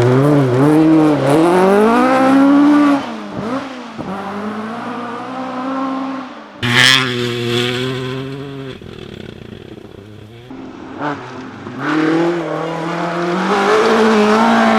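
Rally car engine at full throttle, its pitch rising and falling through gear changes and lifts. It drops off sharply a few seconds in and returns with a sharp bang about halfway. It then fades and builds loud again near the end.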